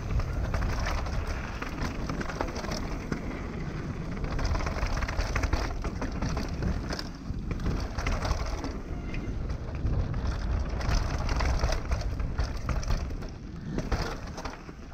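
Downhill mountain bike (YT Tues) descending a dirt trail: tyres crunching over dirt and stones, and the chain and frame rattling with many quick knocks over the bumps, under steady wind noise on the action camera's microphone.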